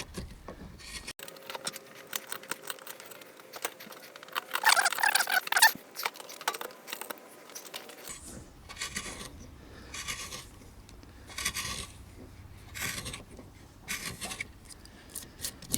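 Carving gouge cutting into green oak while hollowing a spoon bowl: a series of short scraping cuts, the longest and loudest about five seconds in.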